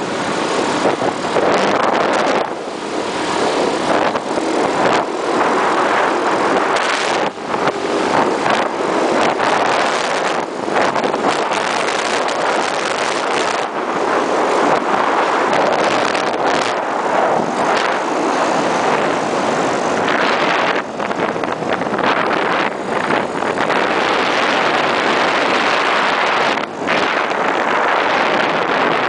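Wind rushing over the microphone of a moving scooter, with the scooter running at speed underneath it. The noise is steady, with a few brief dips.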